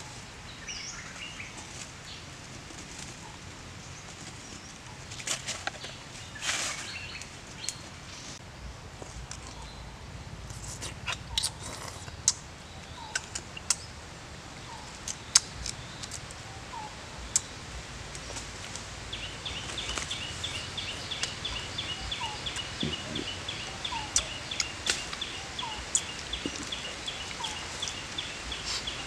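Forest birds calling: short chirps from about a third of the way in, then a fast, high, evenly pulsed trill starting about two-thirds in. Scattered sharp clicks and rustles come from hands handling and peeling food.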